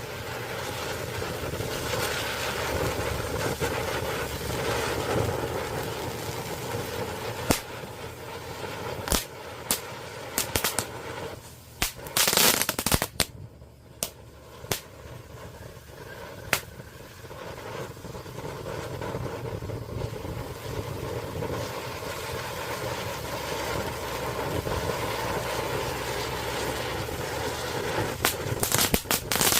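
Neon Jelly Beans firework fountain burning: a steady hissing spray with scattered sharp pops, a dense burst of crackling about twelve seconds in and another near the end.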